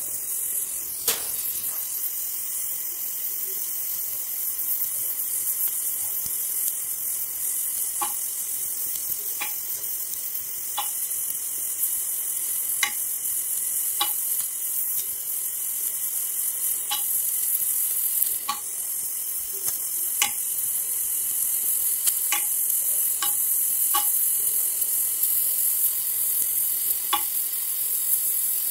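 Gas welding torch flame hissing steadily while aluminum filler rod is melted into an aluminum engine block, with sharp crackling pops every few seconds.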